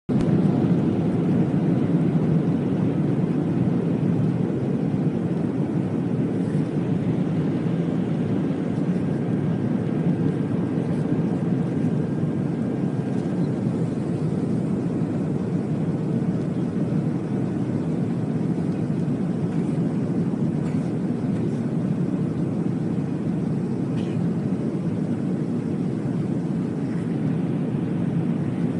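Jet airliner engines at takeoff power heard from inside the passenger cabin: a steady low rumble through the takeoff and climb-out, a little louder in the first few seconds.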